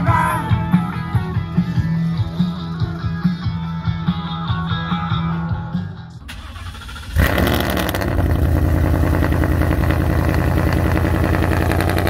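Rock music with singing that stops about six seconds in. About a second later an engine starts abruptly and runs loudly at steady revs.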